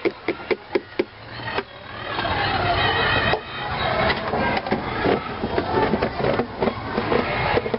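A utensil stirring batter in a plastic bucket, tapping the side in a regular beat of about three strokes a second. From about two seconds in, a loud steady rushing noise builds up and covers it.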